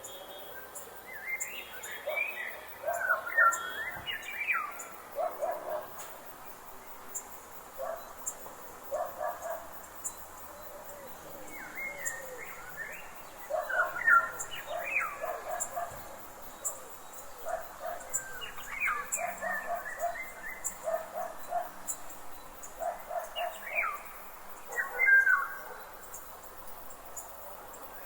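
Forest birds singing and calling: phrases of sweeping whistled notes and clusters of short lower notes, coming every few seconds with brief gaps between them. A faint, regular high ticking runs underneath.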